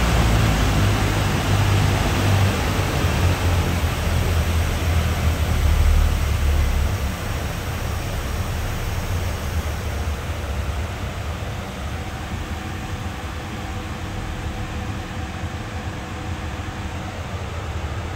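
Rotec R2800 seven-cylinder radial aero engine running on a test stand, then dropping away about seven seconds in as the engine is shut down at the end of its test run. A steady airy hiss remains afterwards.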